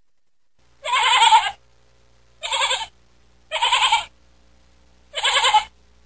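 A sheep bleating four times, each bleat a wavering baa of well under a second, a second or so apart.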